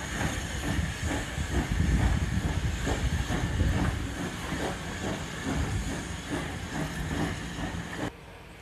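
Steam-hauled passenger coaches rolling past, their wheels clattering in a steady rhythm of about three beats a second over a constant hiss of steam. The sound drops off suddenly near the end.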